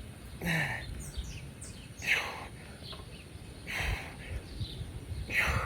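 A man breathing hard in rhythm with push-ups: four forceful breaths, about one every one and a half seconds. Faint bird chirps behind.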